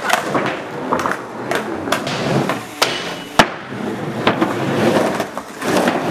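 Skateboard wheels rolling over concrete and plywood, broken by repeated sharp clacks and knocks of the board, the loudest about three and a half seconds in.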